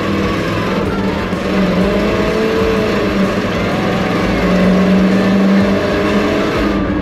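Big-block V8 of a 1979 Chevy C20 pickup pulling under throttle as the truck accelerates. The engine note climbs a couple of seconds in and is loudest around five seconds in.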